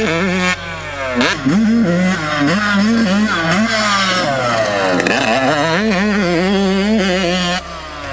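Yamaha YZ125 125cc single-cylinder two-stroke dirt bike engine with a Pro Circuit exhaust revving hard, its pitch climbing and dropping again and again as the throttle is opened and closed.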